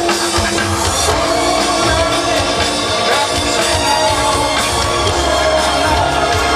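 Live rock band with a singer, drums and guitar playing loudly through an outdoor festival PA, heard from within the crowd.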